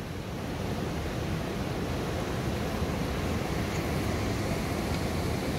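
Wind buffeting the microphone: a steady low rushing rumble with no clear events in it.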